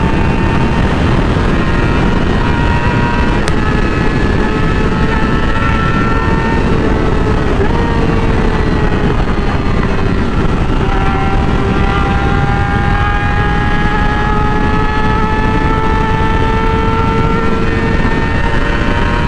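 Yamaha R6's inline-four engine running steadily while riding, over a constant rush of noise; its pitch dips slightly about eight seconds in, then climbs slowly.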